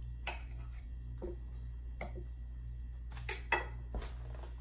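Knife and fork clinking and scraping against a platter while a piece of steak is cut: a handful of separate sharp clicks, the loudest about three and a half seconds in.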